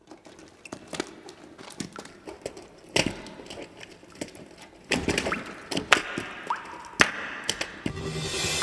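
Scattered knocks, taps and thuds, sparse at first and louder and more frequent from about three seconds in, with a few sharp cracks and one brief rising squeak. Music comes in near the end.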